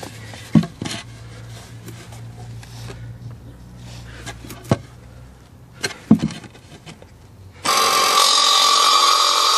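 A few sharp knocks and taps, then near the end a loud power tool comes in suddenly and runs steadily at high speed.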